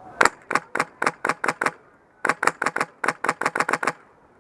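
Polarstar HPA-powered airsoft rifle firing rapid semi-auto shots: sharp cracks in two strings, about seven then about ten, at roughly four to five shots a second with a short pause between.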